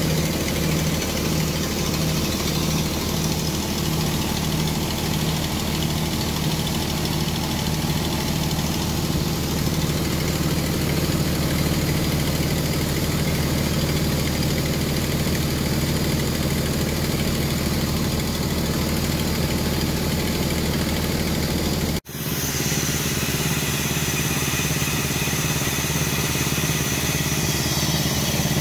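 Stothert and Pitt steam crane's engine running on compressed air as the crane is slewed round, a steady mechanical running with an even, regular beat. The sound drops out for an instant about two-thirds of the way through.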